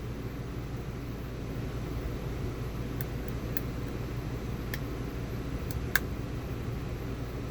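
Lock pick and tension tool working the trampoline pins of a TrioVing-style pin-tumbler cylinder: about five small, sharp clicks in the second half, the loudest about six seconds in. A steady low hum of a fan or room noise runs underneath.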